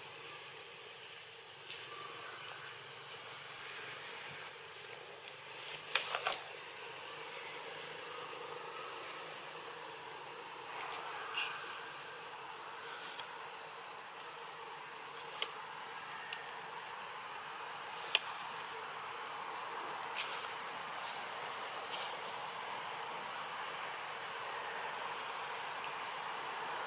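Steady, high-pitched chorus of insects in the forest, with a few sharp clicks now and then.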